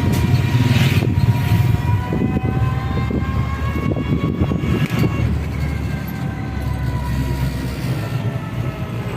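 A vehicle running on the road: a steady low rumble, with a faint whine that drops slightly in pitch in the second half.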